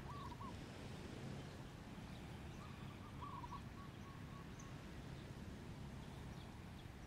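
Faint outdoor ambience: a low steady rumble with a few faint bird calls, one right at the start and a short run of them around three to four seconds in.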